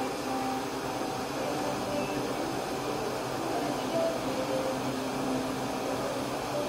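Laser cutter running with a steady fan and air noise, broken by short, brief machine tones at several different pitches.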